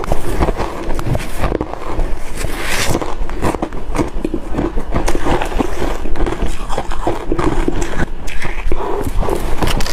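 Crushed and shaved ice being bitten and crunched close to the microphone: a dense, continuous run of crackling crunches.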